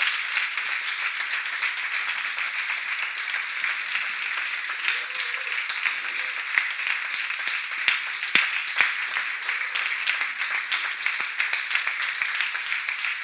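Audience applauding, a dense, steady clapping that goes on without a break.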